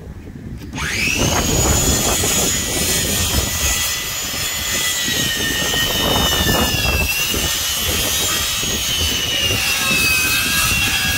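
A motor starts up about a second in with a quickly rising whine, then runs steadily with a high whine that wavers slightly in pitch. A few sharp knocks of a framing nailer driving nails into OSB roof sheathing sound under it.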